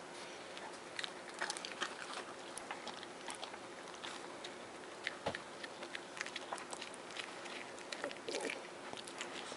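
Toothless Pomeranian gumming and chewing a piece of pizza crust: irregular wet smacks and clicks of its jaws, a few louder ones in clusters.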